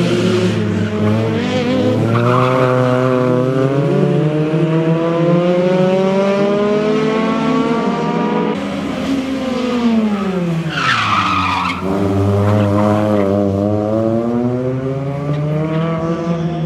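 Honda Civic Type-R rally car's engine revving hard, its pitch climbing steadily for several seconds. Around ten seconds in the revs drop sharply with a short screech of tyres, then climb again.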